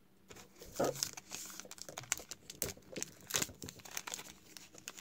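Wrapper of a Topps WWE Heritage trading-card pack being torn open and crinkled by hand, an irregular crackling rustle starting about a third of a second in.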